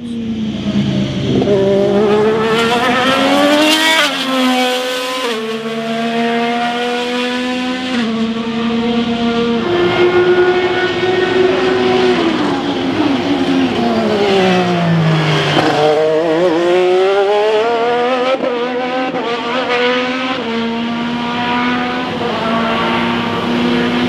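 IndyCar 2.2-litre twin-turbo V6 race engine with the 2024 hybrid energy-recovery system, running at speed on track. The engine note climbs through the gears, drops at each upshift, and falls away in a long slide on a downshift about halfway through before climbing again.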